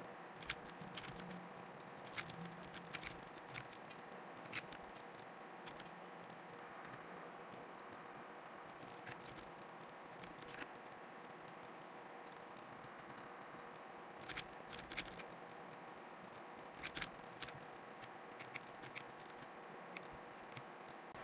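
Faint, irregular clicks of computer mouse and keyboard use over a low steady hiss and hum.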